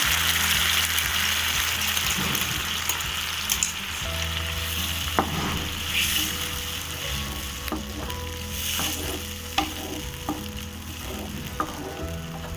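Spinach puree sizzling in a hot pan of fried onion and ginger-garlic paste, loudest at first and slowly dying down, while a spoon clicks and scrapes against the pan as it is stirred.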